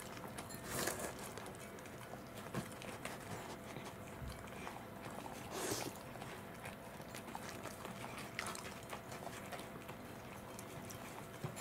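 Welsh corgi licking and eating soy pulp from a plate: a steady run of small wet licks and smacks. There are two louder scuffs, about a second in and near the middle.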